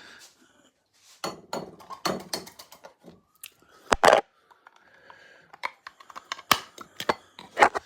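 Cockapoo puppy eating tuna: irregular wet smacks and clicks of quick chewing and licking.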